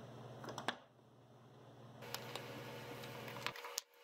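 Faint clicks and taps of wooden vise parts being handled as the front block is turned onto the threaded screw, with a sharper click just under a second in and another near the end, over low room hum.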